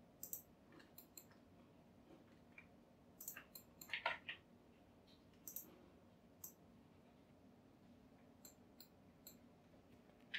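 Faint, scattered clicks of a computer mouse and keyboard, about a dozen short taps at uneven intervals over near silence.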